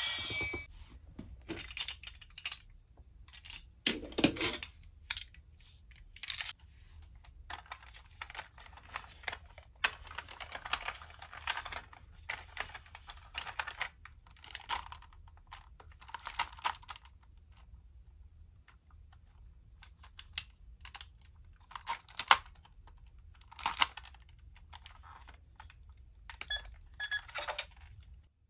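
Hard plastic parts of a DX GoGo Fire toy being handled and snapped together: irregular clicks, snaps and light rattling, with one sharper click a little past twenty seconds in.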